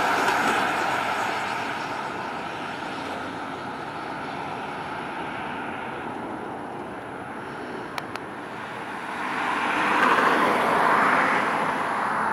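Vintage Oldsmobile V8 car driving past, engine and tyre noise on the road. It is loud at first, fades as the car moves off, then builds again to a louder pass-by a little after ten seconds in. There is a single sharp click about eight seconds in.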